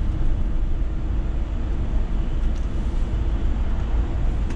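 Scania S500 truck driving at road speed, heard inside the cab: a steady low rumble of engine and road noise.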